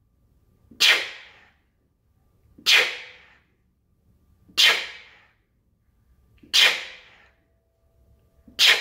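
Sharp, forceful exhales, one with each push-up, five in a row about two seconds apart. Each is a sudden rush of air that fades within half a second.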